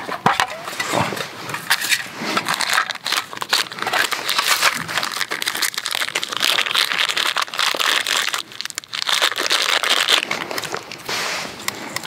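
Dry birch bark crinkling and crackling as it is picked out of a fire-starter tin and handled between the fingers, with a run of small clicks and rustles.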